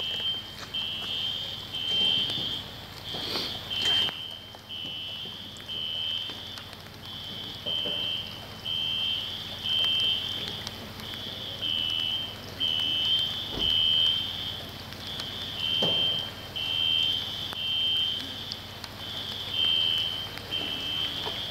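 An electronic alarm sounding without pause, a high two-tone beep rapidly alternating between two close pitches.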